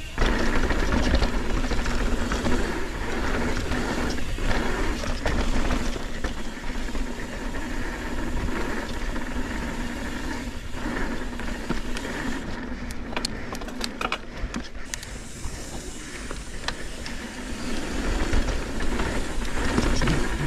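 Mountain bike riding down a dirt singletrack trail: wind buffeting the camera microphone, with tyres rolling over the dirt and the bike rattling, and a run of sharp clattering ticks a little past halfway.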